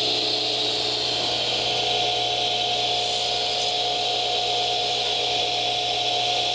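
Radial arm saw running steadily at full speed, a constant high whine with a low hum beneath it.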